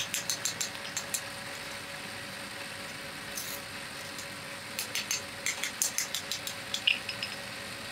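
Sharp metallic clinks and taps as freshly cast metal pieces are knocked and broken off their sprue tree with tongs and a steel rod: a quick run of about six in the first second, then a denser run past the middle. A steady hum runs underneath.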